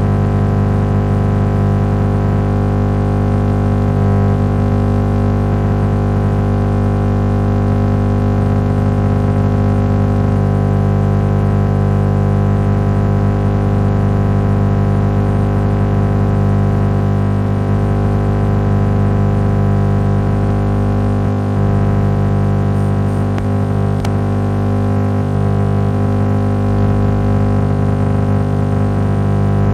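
FM radio tuned to 89.8 MHz putting out a loud, steady buzz of many stacked tones over hiss. This is interference from a switching power supply chopping into the transmitter's stereo encoder.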